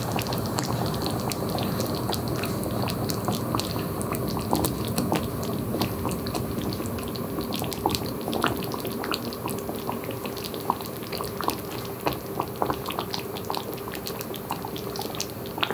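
Mustard cream sauce simmering in a skillet around chicken breasts on medium heat: steady bubbling with irregular small pops and crackles.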